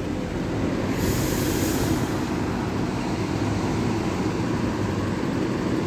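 Bus engines running nearby with a steady low hum while a city bus passes close by. There is a brief hiss about a second in.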